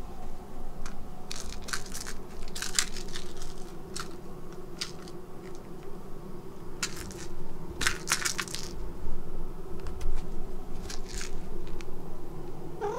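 Cats playing with a yarn pom-pom on a rug by a cardboard box: scattered short crinkly rustles and scratches in clusters, over a steady low hum.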